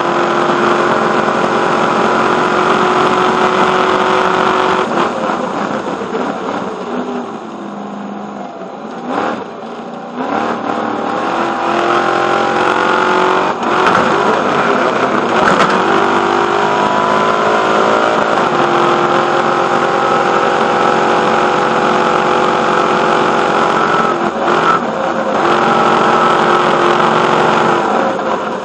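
Stadium Super Truck's V8 engine at racing speed, heard from the roof with wind rushing over the microphone. The note drops as the truck slows for a corner about six seconds in, then climbs in several rising sweeps through the gears and holds steady at high revs, with a brief dip near the end.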